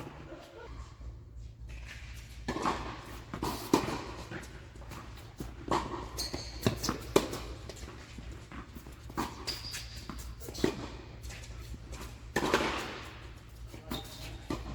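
Tennis rally: sharp knocks of racket strikes and ball bounces at irregular intervals, roughly one a second, over a steady low hum.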